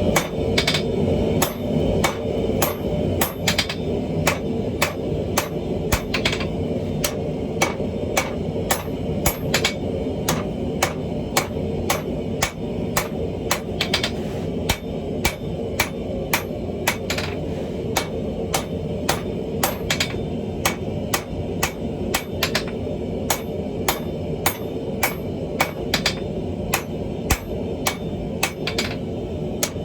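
Hammer blows on hot steel over an anvil, forging a welded chain Damascus billet: about two ringing strikes a second, kept up steadily, over a steady low background roar.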